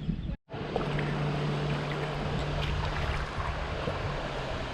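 Steady rushing noise of river water, with wind on the microphone, after a brief moment of silence near the start where the recording cuts.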